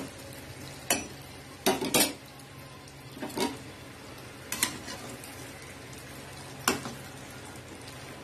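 Athirasam dough deep-frying in hot oil in a stainless-steel kadai, a steady sizzle, with a perforated steel ladle clinking and scraping against the pan about six times as the piece is turned.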